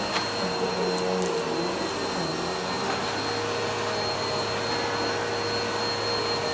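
Vacuum cleaner running steadily, a constant motor hum over a whooshing air noise, with a few light knocks in the first second or so.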